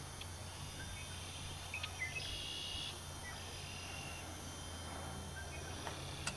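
Quiet outdoor background: a low steady hum with a few short, faint high chirps and small ticks.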